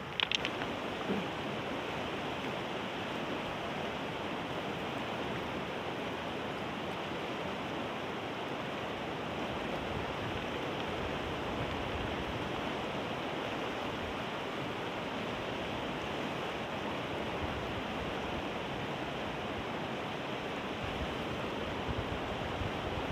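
Steady rushing of a fast-flowing river with rapids, an even wash of water noise that does not change. A few brief clicks in the first second or so.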